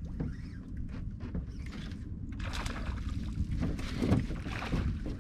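Low wind rumble and water lapping around a small fishing boat, with a few light knocks and handling noises aboard, the loudest about four seconds in.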